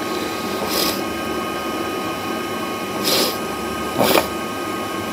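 Soldering iron melting solder onto a diode's pins on a TV panel board: three short sizzling hisses, about a second in and twice more after three seconds, over a steady whir of workshop equipment.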